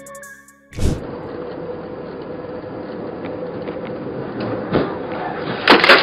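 Background music that stops about a second in. Then steady road and engine noise inside a truck's cab on a highway. Near the end come loud crash bangs and clattering debris as a car ahead of the truck collides.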